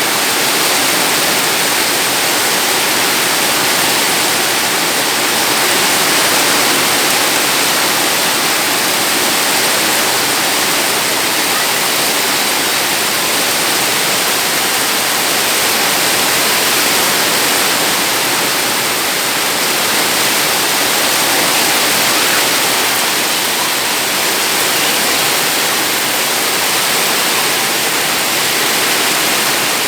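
Heavy rain pouring down, a steady loud hiss of water.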